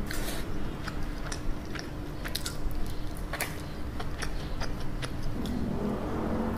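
Close-miked chewing of crispy, sauce-glazed fried chicken: irregular sharp crunchy clicks as the coating is chewed, with a fresh bite into the drumstick near the end.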